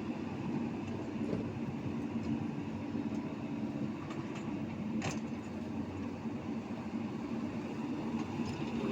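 Excavator's diesel engine running steadily, with a single sharp click about five seconds in.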